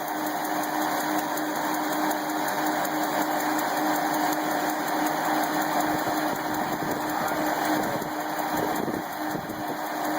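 Sawmill machinery running steadily, a constant mechanical drone with a steady hum.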